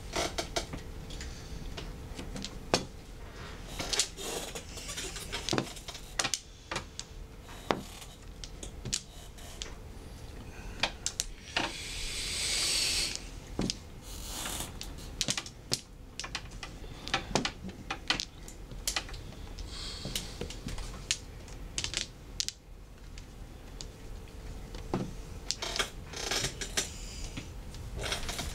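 Mahjong tiles clicking and clacking as they are drawn, set down and discarded on an automatic mahjong table, in sharp irregular clicks. A breathy hiss lasts about a second and a half a little before the middle.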